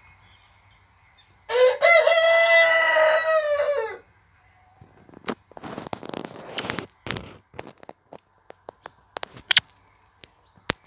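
Buff Orpington rooster crowing once, a single crow of about two and a half seconds. About a second after it ends comes a run of irregular crackling and rustling noises.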